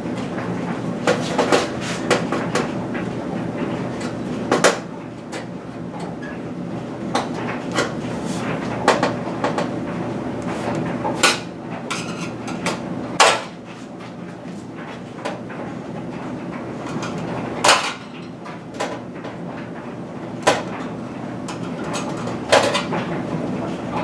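Irregular clicks and knocks of pliers and plastic push-pin clips against the thin sheet-metal back panel of an opened LCD TV, as the pin tabs are squeezed to free the old LED backlight strips. A steady low hum runs underneath.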